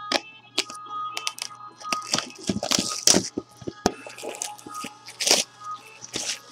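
A sealed trading-card box being opened by hand: its packaging torn and crinkled, with irregular rustling, crackling and tearing bursts, the densest about two to three seconds in and another around five seconds in.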